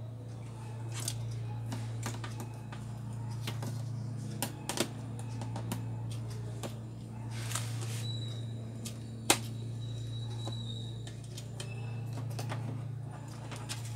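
Scattered small clicks and taps of a screwdriver and fingers working on the frame and parts of a disassembled LCD TV, with a small cluster of clicks about four and a half seconds in and the sharpest click about nine seconds in, over a steady low hum.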